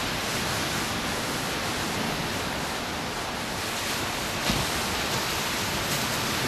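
Steady wash of small ocean waves breaking along the beach, with one short click about two-thirds of the way through.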